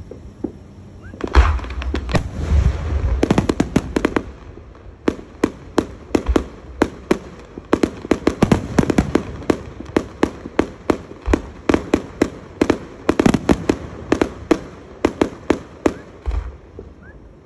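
Aerial fireworks bursting in a rapid run of sharp bangs and crackles, several a second. They start about a second in and thin out near the end.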